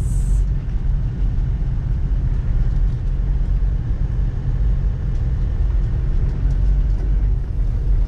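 Steady low rumble of a moving vehicle, road noise with no rhythm or change.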